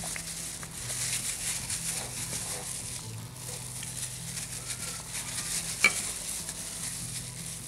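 Gloved hands squelching and rubbing an oily marinade into fish in a glass bowl, a steady wet squishing with small scrapes. One sharp tap just before six seconds in.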